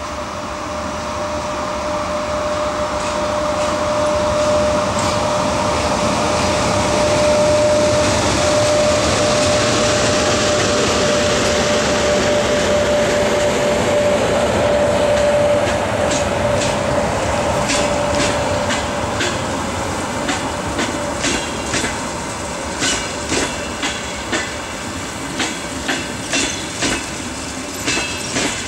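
EP1M electric locomotive passing with a steady whine, followed by its passenger coaches rolling by. In the last third the coach wheels click over the rail joints in regular pairs (clickety-clack).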